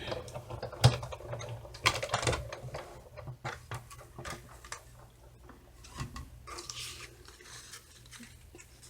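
Irregular clicks, taps and paper rustling from working a die-cutting machine: a cutting die and paper being run through and handled, with sharper knocks about a second and two seconds in.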